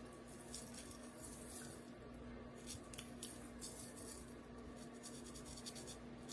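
Faint scratchy rustling and small clicks in irregular clusters, like close handling of hair or lace, over a steady low hum.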